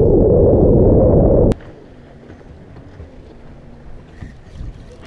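Wind buffeting the microphone on an open boat out on the lake, which cuts off abruptly about a second and a half in. After that, only faint water noise and a faint low hum.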